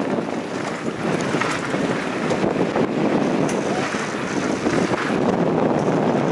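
Wind rushing over the microphone and mountain bike tyres rolling fast over a dirt forest trail, a steady noise with a few faint rattles.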